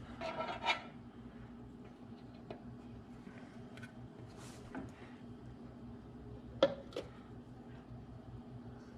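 Metal hand tools and parts clinking and knocking during engine repair, with two sharp metallic clicks about two-thirds of the way through, over a faint steady hum.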